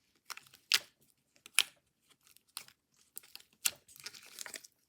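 Homemade slime being handled, giving a string of short sharp pops and crackles, spaced irregularly and coming faster near the end.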